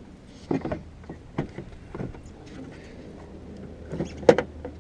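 Plastic taillight housing knocking and clicking as it is worked into its opening in the car body, a series of irregular knocks with the loudest about four seconds in, over a low steady hum.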